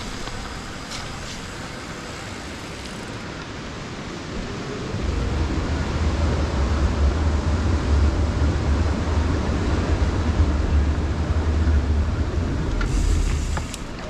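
Mountain bike rolling over a gravel trail: tyre crunch with wind buffeting the chin-mounted camera's microphone. A heavy low rumble comes in about five seconds in, much louder, and drops away just before the end.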